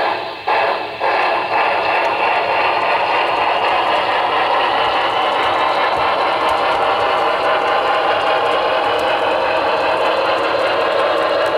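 HO-scale Union Pacific Big Boy 4-8-8-4 model steam locomotive's sound decoder chuffing through its small onboard speaker. Separate chuffs in the first second or so run together into a fast, steady rush.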